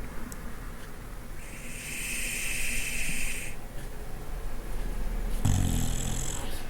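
Bulldog snoring in her sleep: a long hissing breath about a second and a half in, then a low snore near the end.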